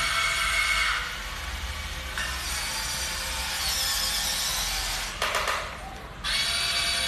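Whine of the small electric motors of a radio-controlled toy excavator as it drives its boom and arm and levers its tracks off the floor with the bucket. The whine changes level about one and two seconds in, drops to a brief rattle of clicks about five seconds in, then comes back louder near the end.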